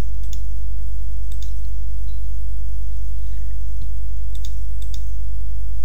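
A few scattered computer mouse clicks over a steady low hum.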